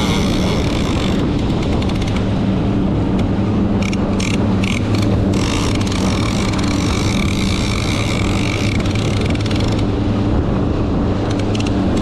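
Twin outboard motors running steadily as the boat keeps moving forward, with the rush of water from the wake. A few short ticks about four to five seconds in.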